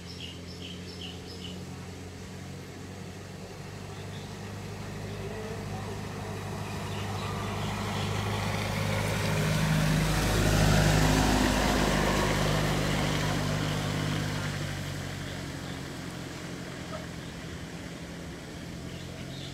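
Pickup truck driving past on a dirt road: its engine hum and tyre noise grow steadily louder, peak as it passes close about ten seconds in, then fade away.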